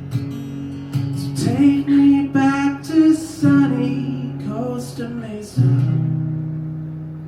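Acoustic guitar strumming under a singer's wordless vocal line, ending on a final strummed chord about five and a half seconds in that rings out and fades: the close of the song.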